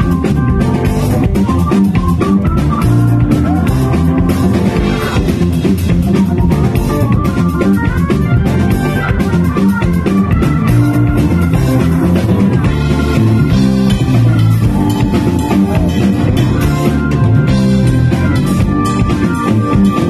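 A live funk band playing instrumentally: electric guitar from a red semi-hollow-body guitar over bass guitar, organ and a drum kit keeping a steady groove. Loud and full throughout.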